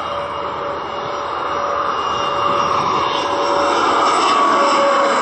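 Bombardier CRJ regional jet's twin General Electric CF34 turbofans on landing approach: a steady jet rumble with a whining tone, growing louder as the aircraft comes closer.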